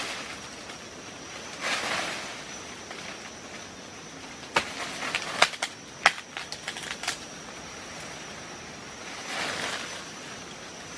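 Leafy branches rustling as a person pushes through dense bushes, with a burst of sharp snaps and cracks of twigs breaking in the middle. A steady high-pitched insect drone runs underneath.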